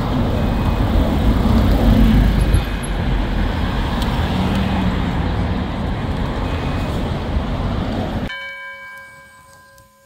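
Busy city street traffic: buses and cars passing with a steady loud rumble, and a short high beep about every two seconds. About eight seconds in, the traffic cuts off abruptly and a single bell-like ringing tone with several overtones takes its place, fading away.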